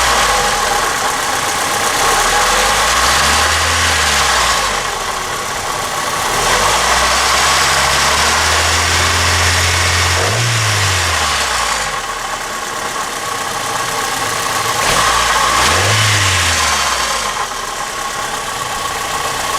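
1989 Honda Accord LXi's four-cylinder engine running with a metallic tapping, its speed rising and falling three times. The tapping comes from the failing pulley on the water pump.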